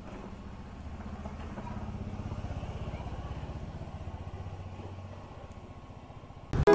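A motorcycle engine running low and pulsing, swelling for a couple of seconds about one and a half seconds in and then fading as the bike passes and pulls away. Ukulele music cuts in abruptly at the very end.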